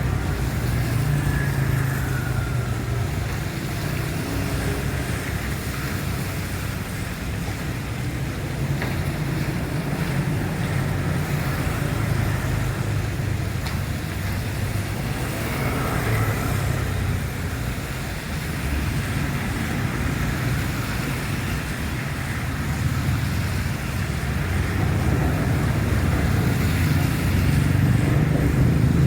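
Steady city road traffic in heavy rain: vehicle engines running and a continuous rushing hiss of rain and tyres on the wet road, with no break.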